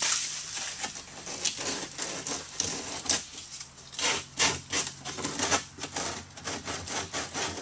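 Sandpaper rubbed back and forth by hand around the edge of a freshly cut hole in a plastic stock tank wall, enlarging the hole for a bulkhead fitting. It is a run of quick, uneven scratchy strokes.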